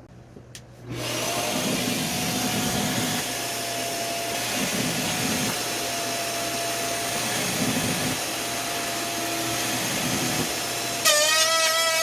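A woodworking power tool starts about a second in and runs steadily with a high whine, with several louder stretches where it cuts into wood.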